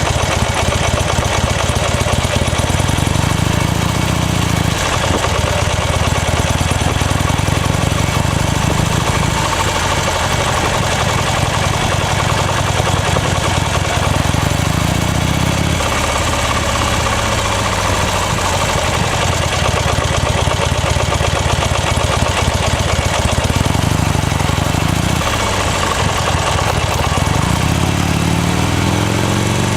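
Buell XB9S Lightning's air-cooled V-twin engine running under way. The revs climb and then drop sharply several times as the bike accelerates and shifts gears.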